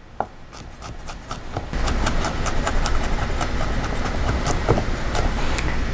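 French chef's knife rapidly mincing garlic cloves on a wooden cutting board: quick, repeated taps of the blade against the board, growing louder about two seconds in.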